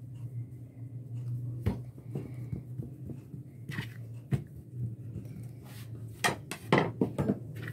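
Handling noises of paratha dough being folded and set down on a plastic sheet: soft rustles with a few sharp knocks, the loudest cluster near the end as the dough round is put down and pressed. A steady low hum runs underneath.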